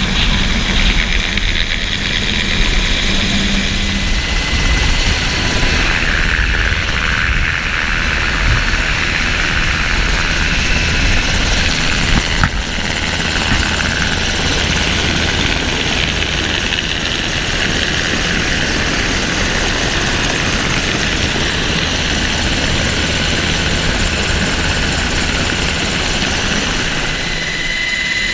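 Sikorsky MH-60T Jayhawk helicopter heard close up, its rotors and turbine engines running steadily with a thin high whine above the noise. About twelve seconds in the sound changes abruptly.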